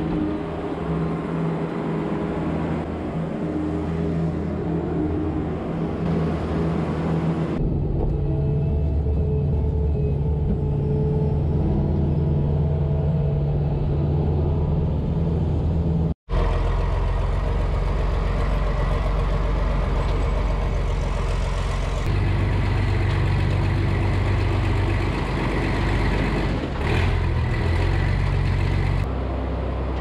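Farm machinery engines running steadily across several cuts: a tractor driving a Trioliet feed mixer wagon as feed is mixed, then a skid steer loader heard from inside its cab. The sound drops out for an instant about sixteen seconds in.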